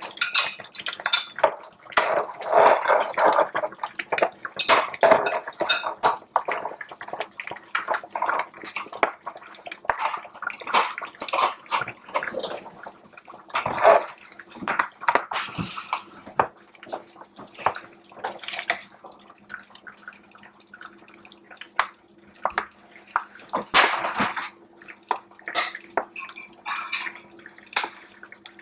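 Metal tongs clicking and scraping in an electric cooker pot while saucy cooked stuffed cabbage rolls are lifted out, with wet dripping and splashing as the sauce runs off them. A faint steady hum runs underneath.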